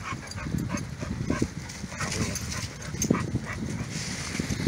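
Dogs play-wrestling at close range: dog noises mixed with paws scuffling and crunching through dry leaves in quick, irregular bursts.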